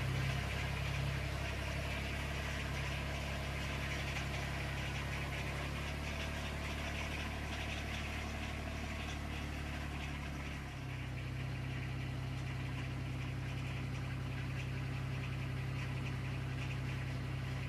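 Rural King RK25 compact tractor's diesel engine running steadily as the tractor drives off, its note shifting to a new steady pitch about eleven seconds in.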